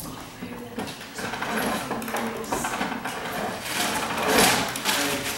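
Classroom room noise: students murmuring quietly, with scattered small clicks and rustles of pencils, papers and objects on desks, and a louder rustle or scrape about four seconds in.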